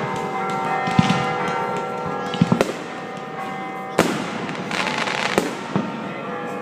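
Fireworks bursting: several sharp bangs a second or so apart, the loudest about four seconds in, followed by crackling. Music with sustained tones plays underneath.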